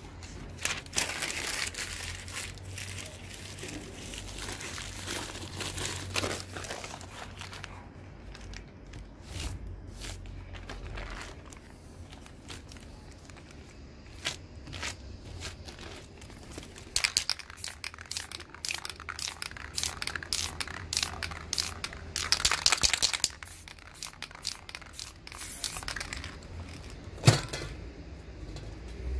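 A crumpled plastic wrapper crinkling and crackling as it is pressed and dabbed onto wet spray paint, with short hisses of a spray can between. A single sharp knock near the end.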